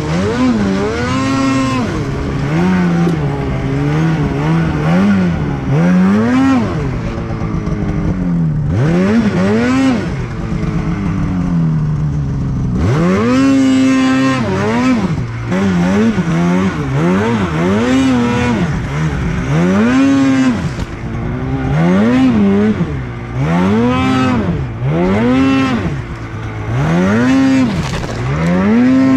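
Snowmobile engine revving up and dropping back over and over as the throttle is worked through deep powder, each rise and fall lasting about a second, with a few longer pulls near the middle.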